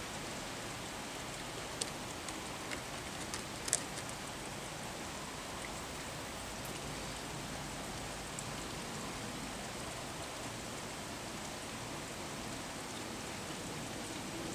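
Steady, even hiss, with a few faint clicks about two to four seconds in.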